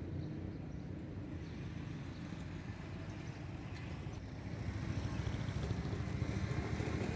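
Low steady rumble of a truck engine idling, growing louder in the last few seconds.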